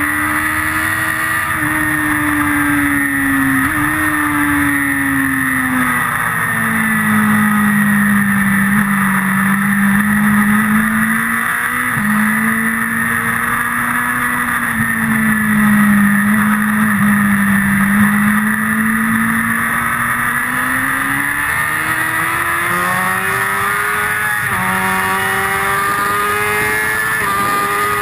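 Motorcycle engine running hard on a race track, heard from an onboard camera: the engine note drops and holds low through a long corner, then climbs steadily down the straight, with brief sudden steps in pitch at gear changes. Steady wind and road noise run underneath.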